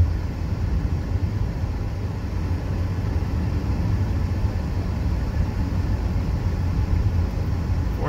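Steady cabin noise of a Mazda CX-30 cruising at about 50 mph: a low engine and road rumble, with the engine held near 3,000 rpm in sport mode.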